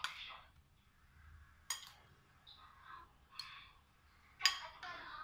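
A spoon clinking against a ceramic bowl while stirring sauce: a few sharp clinks about a second or two apart, the loudest near the end, with softer stirring sounds between.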